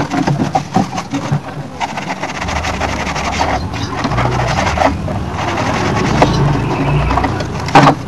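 Hands scrubbing and rinsing a plastic air-conditioner indoor-unit casing, with rubbing, scraping and water sounds. From about two seconds in, a low vehicle engine rumble grows louder, then drops near the end, where a few sharp knocks sound.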